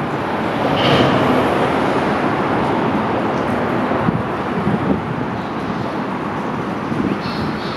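River water rushing steadily over rocks, a dense continuous rush.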